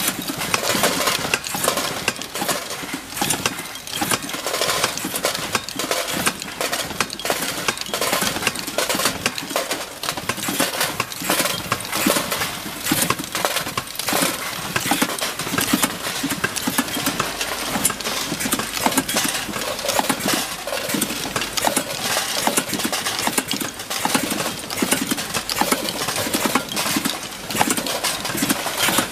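Factory clatter of small bench assembly presses working on steel concealed hinges, with metal hinge parts clinking as they are handled and dropped onto piles: a dense run of irregular clicks and clanks over a steady machine hum.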